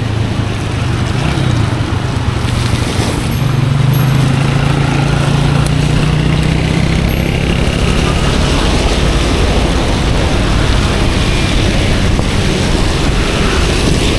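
Steady rushing noise of wind and wet road on an action camera's microphone while cycling in the rain, with a passing motor vehicle's engine humming low for several seconds in the first half.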